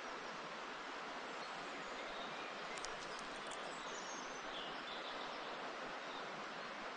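Steady forest ambience: an even rushing hiss, with a few brief high bird chirps about three seconds in and faint high bird calls just after.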